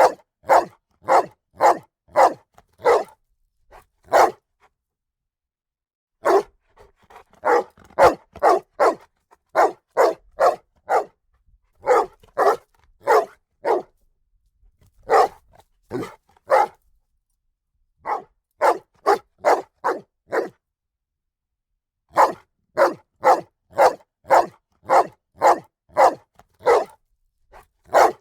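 A dog barking loudly and repeatedly, in quick runs of several barks at about three a second, with short pauses between the runs.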